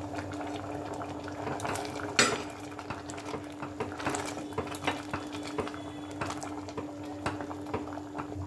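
Wooden spatula stirring thick pea curry in a nonstick pot, scraping and knocking against the pan, with the sharpest knock about two seconds in. A steady low hum runs underneath.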